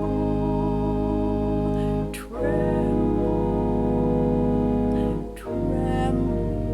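Organ music: held chords, each sustained and then released with a brief break before the next chord, about two seconds in and again about five and a half seconds in.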